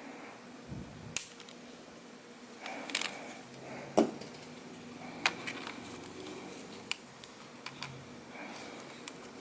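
Scattered small clicks and taps of plastic parts as a laptop keyboard and its ribbon-cable connector are handled and fitted into place. The sharpest click comes about four seconds in.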